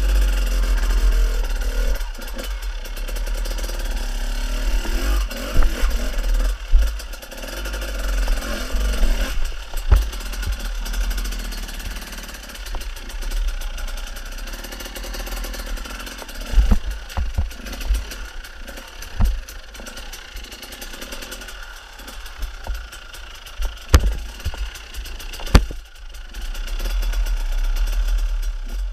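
Enduro motorcycle engine revving up and down in bursts while climbing a rocky gully, with several sharp knocks as the bike strikes rocks and a heavy low rumble on the on-board microphone.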